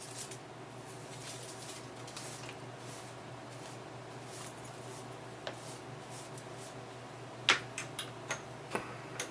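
A machine tool's electric motor running with a steady low hum, and a few light, sharp clicks about seven and a half seconds in and through the last two seconds.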